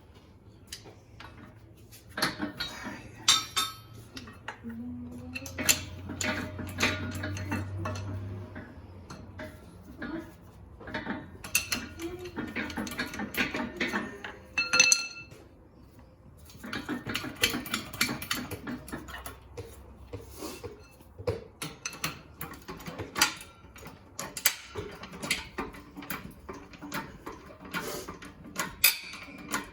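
Metal tools and parts clinking and clanking, with a few brief ringing metallic strikes, as a new wheel bearing is pressed into its housing. A low hum runs under the first third.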